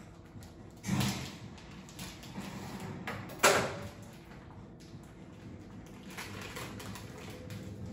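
Kitchen-counter handling noises as raw meat is worked out of its plastic packaging: low rustling, with two sudden louder bumps about a second in and about three and a half seconds in, the second the loudest.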